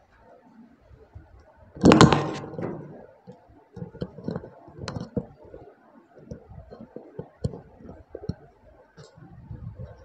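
A loud knock about two seconds in, with a brief ringing after it, followed by scattered light clicks and soft knocks.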